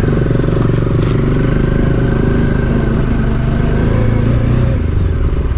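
Motorcycle engine running steadily at an even speed while riding.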